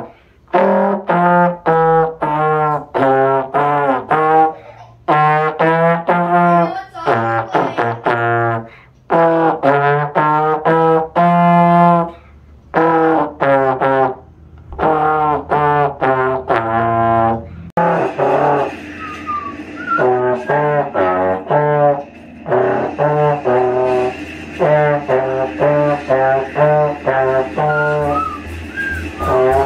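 A slide trombone played by a beginner, one detached note after another with short breaks between phrases, stepping through a simple practice tune. About eighteen seconds in, a faint steady high whine joins behind the notes.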